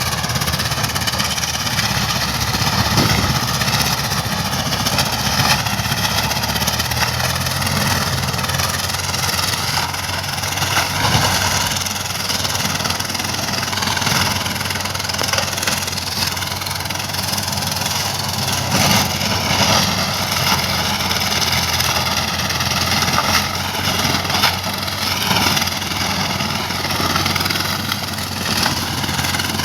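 Swaraj 744 FE tractor's three-cylinder diesel engine running steadily, its pitch wavering slightly.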